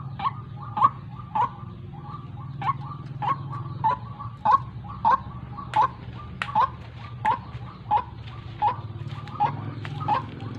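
Female white-breasted waterhen calling a short note over and over, about one and a half calls a second, over a steady low hum.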